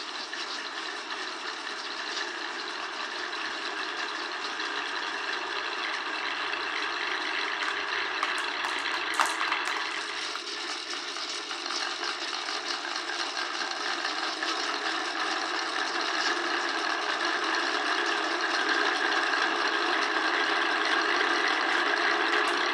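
Steady rolling rattle from a toy marble-run and rail course, growing slowly louder, with a single sharp click about nine seconds in.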